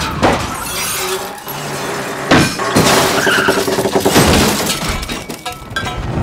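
A pickup truck and an SUV colliding at highway speed: running engine and road noise broken by crunching metal impacts, a heavy one about two seconds in, then a run of further hits with breaking glass and scraping.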